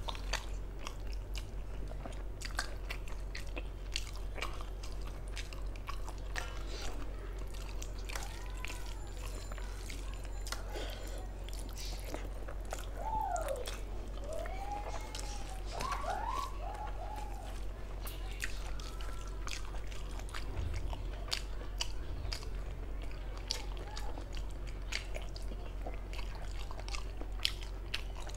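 Close-up mouth sounds of a person chewing and biting mouthfuls of rice with mutton lung curry, with many small wet clicks and smacks.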